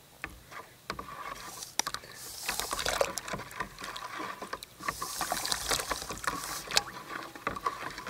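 Hot water in a plastic bucket being stirred with a plastic spoon while oxalic acid crystals are poured in: swishing and sloshing, with scattered clicks and knocks, growing busier about two seconds in.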